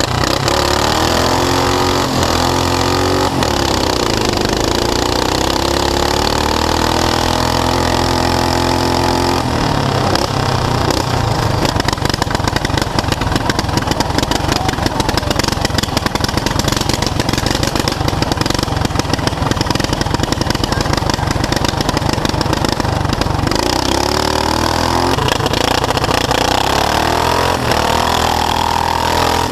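Racing lawn tractor engine running loud, its pitch going up and down for the first several seconds, then a harsher, rattling steady run through the middle, with the pitch rising again near the end.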